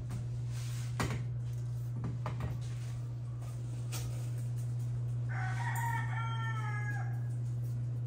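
A rooster crowing once, a call of about two seconds, over a steady low hum, with a few sharp knocks before it.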